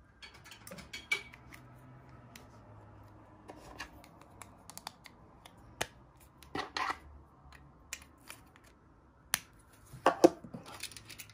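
Small plastic clicks and taps from a Mercedes-Benz key fob being handled: a coin cell battery is pressed into the key and the plastic battery cover is snapped back on. Louder clicks come about halfway through and again near the end.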